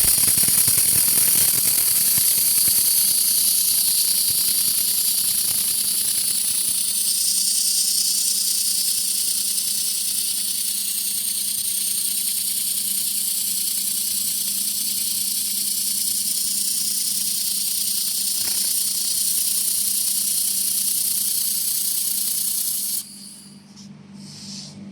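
Steady hiss of a 2000 W fiber laser welding machine running a weld on 5 mm stainless steel, with a faint low machine hum beneath. The hiss cuts off suddenly near the end when the weld stops.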